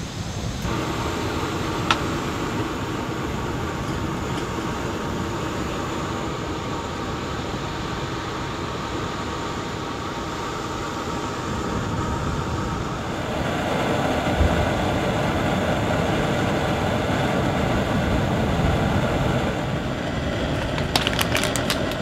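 Backpacking gas canister stove lit with a sharp click, then its burner running with a steady hiss. A quick run of light clicks near the end.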